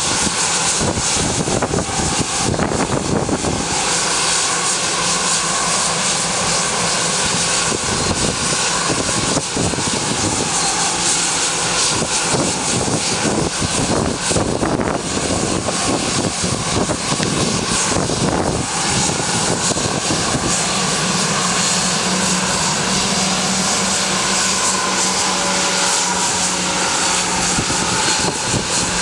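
Bombardier Global Express business jet's two rear-mounted Rolls-Royce BR710 turbofans running at low taxi power: a steady jet whine and rush. A low hum joins about two-thirds of the way through.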